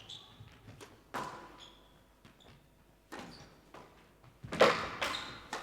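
Squash ball being struck by rackets and smacking against the court walls in a rally: sharp, echoing cracks at an uneven pace, coming faster and louder near the end, with brief squeaks from court shoes in between.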